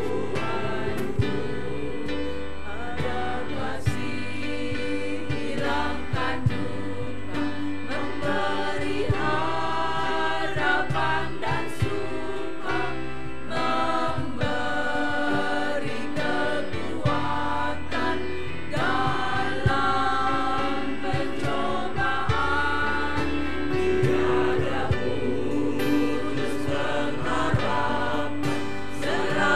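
Church choir singing a hymn in parts, with long held chords over steady low notes.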